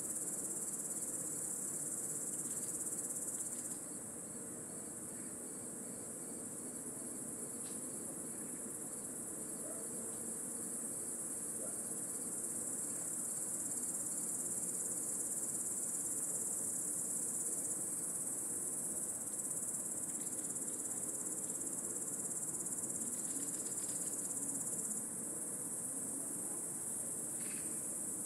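A dense chorus of singing insects, which the uploader calls cicadas, making a steady, high-pitched shrill drone. It eases slightly about four seconds in and again near the end.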